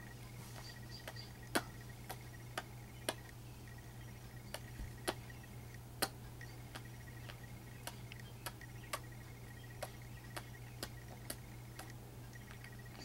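Irregular sharp clicks, about two a second, over a steady low hum.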